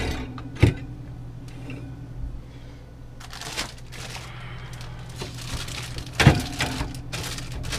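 Food containers knocking as they are picked up and set down on fridge shelves, with rustling of packaging in the second half, over a steady low hum.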